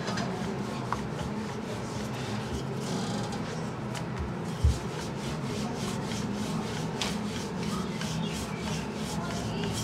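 Rolling pin rolling dough out into a thin round on a floured worktop: a steady rubbing sound as it is pushed back and forth, with a soft thump about four and a half seconds in.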